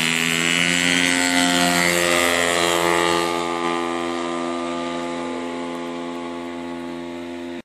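Large-scale radio-controlled Piper J-3 Cub model's engine and propeller running at full throttle through the takeoff run and climb-out: a steady buzzing drone that slowly fades as the plane climbs away.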